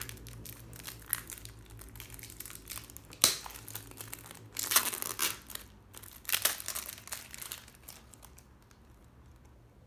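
Plastic wrapper of a trading-card booster pack being torn open and crinkled in the hands. A sharp snap comes about three seconds in, with louder bursts of crinkling around halfway, then it quietens toward the end.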